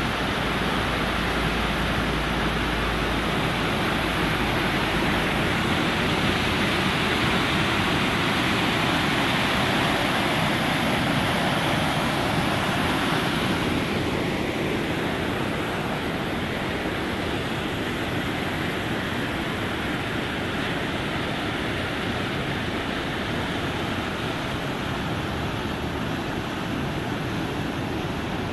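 Waterfall and rapids rushing through a narrow rock gorge: a steady roar of white water, a little louder in the first half.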